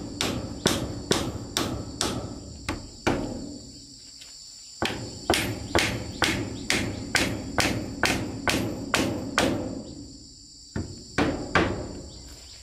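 Hammer blows driving nails into a wooden batten on a plank wall, sharp knocks about two to three a second in runs, with two short pauses between runs. Insects drone steadily at a high pitch in the background.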